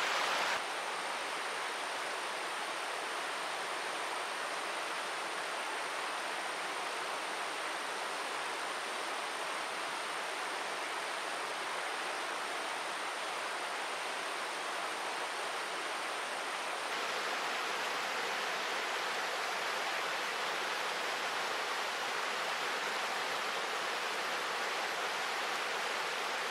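Steady rushing of river water, an even, unbroken wash of noise.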